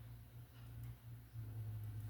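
A few faint, small clicks from a wire being worked into a plastic lever connector, over a steady low hum.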